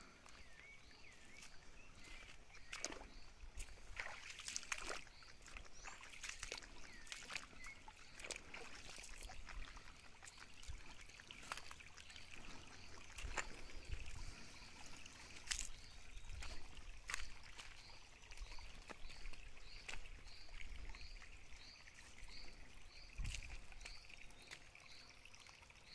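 Faint trickle of a shallow stream running over stones, with a steady high background hum of outdoor wildlife. Through the second half a short high call repeats about twice a second, and scattered sharp clicks and knocks come and go.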